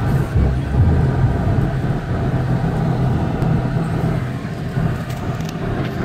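Steady low engine and road rumble heard from inside a moving car's cabin.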